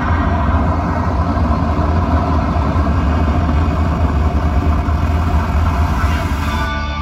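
Live rock band playing loudly, heard from the audience through an overloaded phone microphone: a dense, distorted wash with a heavy low rumble while the keyboardist plays. Near the end it clears into distinct keyboard notes.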